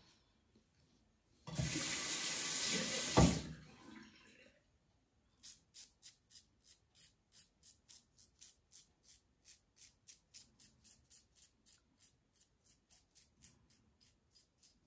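Tap water running into a basin for about two seconds, cut off with a knock. Then a King C Gillette safety razor with a BIC Astor blade scrapes through stubble in short, quick strokes, about three or four a second, growing fainter toward the end: a bright, crisp cutting sound that the shaver takes as the sign of a sharp blade.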